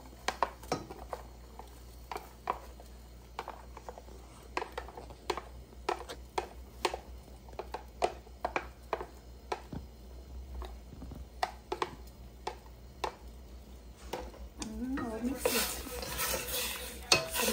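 Plastic spatula knocking and scraping chopped onions out of a plastic tub into a stainless steel pot: irregular sharp taps, one or two a second, over a low steady hum. Near the end the spatula stirs the meat and onions in the pot, and a woman's voice comes in.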